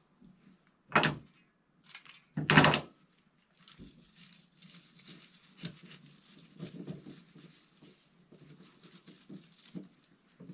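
Two loud knocks about a second and a half apart, the second one longer, as things are handled on a wooden table, followed by softer, irregular rustling of leafy flower stems being picked up and pushed into a small glass vase.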